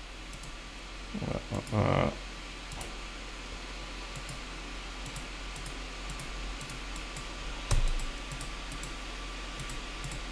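Scattered computer mouse clicks over a steady hiss of fan or room noise. One stronger low thump comes about three quarters of the way through.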